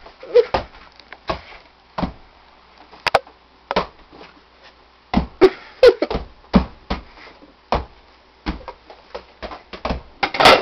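Irregular knocks and thumps of something being handled and knocked about, with a sharp click about three seconds in and the loudest knock near the end.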